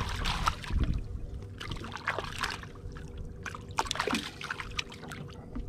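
Irregular small splashes and water trickling as a hooked trout thrashes at the surface, held by hand against the side of a boat.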